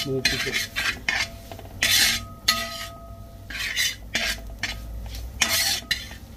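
A spoon stirring and scraping onions and spice powders around a pan as the masala is roasted, in about five separate strokes with faint clinks and ringing from the pan.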